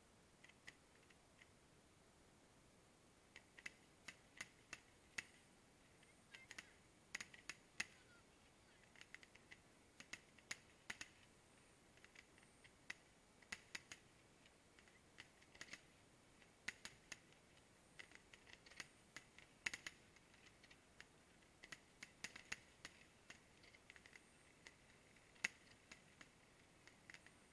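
Faint, sharp, irregular clicks and pops, a few each second, over near silence.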